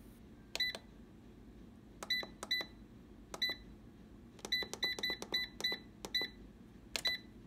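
GoWISE USA air fryer's control panel beeping at each button press: about eleven short, high beeps, spaced unevenly, with a quick run of them a little past the middle, as the cooking time is set for another 10 minutes.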